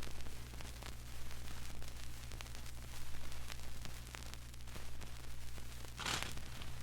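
Vinyl record surface noise: steady hiss and low hum with scattered crackling clicks. A short louder burst of noise comes about six seconds in.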